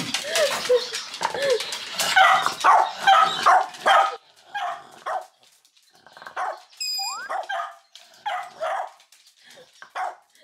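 Cavalier King Charles spaniels barking repeatedly, in a dense run for the first few seconds and then in sparser single barks. A brief high-pitched call sounds about seven seconds in.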